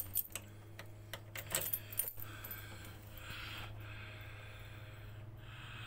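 Keys jangling, with a few light clicks and rattles over the first two seconds and soft rustling later, over a faint steady low hum.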